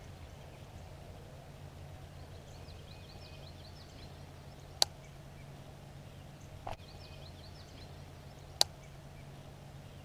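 Faint outdoor ambience with a steady low hum and distant birds chirping in two short runs, broken by two sharp clicks about four seconds apart.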